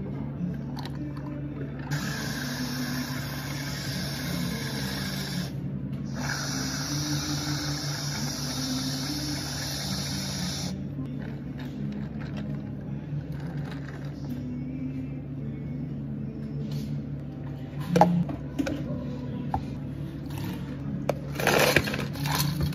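Whipped-cream dispenser hissing in two long sprays, one after the other, over a low steady hum. A single knock about three quarters through, then ice scooped and clattering into a plastic cup near the end.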